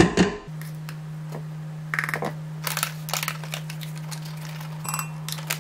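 Scattered crinkling, clicking and tapping from handling a resealable paper powder pouch and a plastic powder tub over a blender jar, in short irregular bursts. A steady low hum runs underneath from about half a second in.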